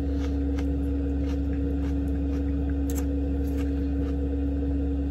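A steady low hum with a constant tone runs throughout, under several light clicks of a fork against a dish.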